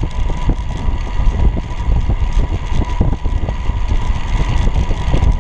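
Wind rushing over the microphone of a camera riding on a recumbent low racer bicycle at speed, over a steady low road rumble with small knocks from the paved path. A faint steady high tone sits underneath.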